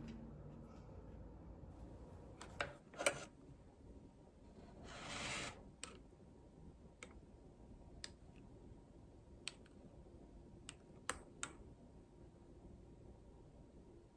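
Sparse light clicks of a metal spoon against a glass as a drink is stirred, roughly one a second. A couple of knocks and a brief soft rustle come a few seconds earlier.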